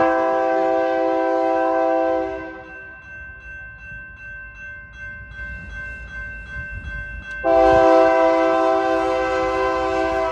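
Diesel locomotive's multi-chime air horn sounding two long blasts several seconds apart: the first ends about two and a half seconds in, the second starts about seven and a half seconds in. Between the blasts a quieter low rumble of the passing train.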